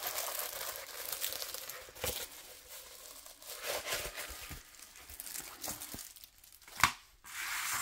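Diamond painting canvas under its clear plastic film crinkling and rustling in uneven bursts as it is unrolled and flattened, with one sharp tap near the end.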